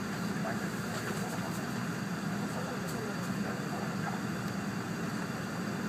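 Steady low rumble and hum inside the passenger cabin of an E4 series Shinkansen train moving along a station platform.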